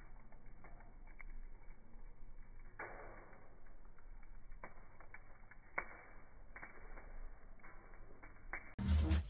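Charcoal catching light in a chimney starter over burning fire-starter, giving sparse, irregular crackles and pops. A short, loud burst of noise comes near the end.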